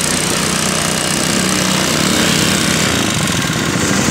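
Small single-cylinder four-stroke petrol engine (Matsumoto MGX 100, 3.5 hp) of an MGP-40B 1.5-inch portable water pump, running steadily.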